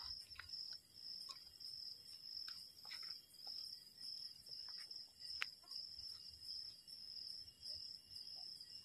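Crickets chirping steadily in a continuous high-pitched trill, with a few faint scattered clicks.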